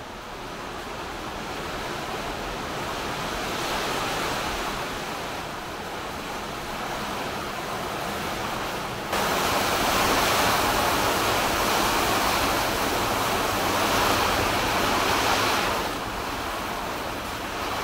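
Steady rain falling, a continuous hiss. It gets abruptly louder about halfway through, dips briefly and comes back up near the end.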